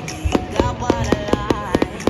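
Fireworks going off in a rapid run of sharp cracks and bangs, several a second, over music with held and gliding notes.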